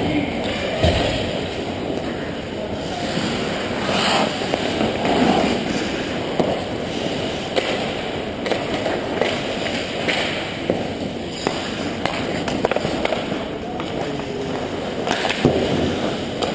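Ice hockey skates scraping and carving on the ice, with sharp clacks of sticks and puck scattered throughout over a steady low rink noise. Louder skate scrapes come about four seconds in and again near the end as players close on the net.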